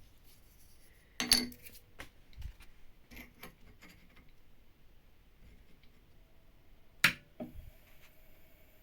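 Small hard metal objects handled and set down on a metal surface: scattered light clicks, with two louder sharp clinks about a second in and again near seven seconds.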